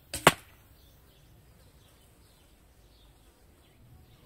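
An arrow strikes the target of tightly woven carpet layers sandwiched between high-density foam, giving a short, sharp double smack right at the start, the second hit the loudest. Faint birdsong follows.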